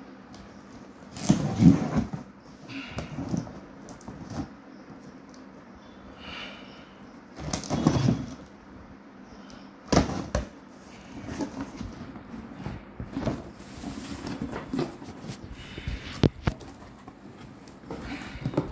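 Scissors cutting packing tape along the seam of a cardboard box, with cardboard flaps scraping and rustling. Now and then a sharp snip or knock stands out.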